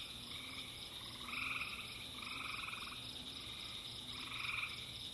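Frogs calling on a summer night: short trilled calls about half a second long, repeating every second or so with a pause near the middle, over a steady high-pitched drone.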